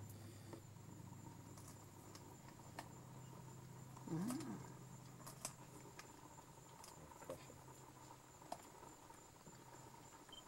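Faint, scattered clicks and crunches of a leopard chewing at an antelope carcass, over a low steady hum. About four seconds in there is a brief wavering creak.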